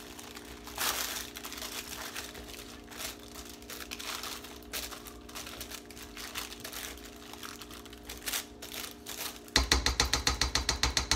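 Meatballs being stirred in a thick, sticky sauce with a spatula in a slow cooker lined with a plastic bag: irregular wet scraping and crinkling of the liner. Near the end comes a fast, even run of loud knocks, about nine a second.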